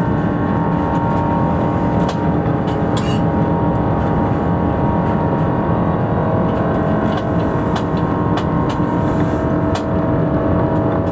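Airbus A320's jet engines at high power during the takeoff roll, heard from inside the cabin: a loud, steady rumble with several steady engine tones. Scattered light clicks and rattles run through it. It cuts off suddenly near the end.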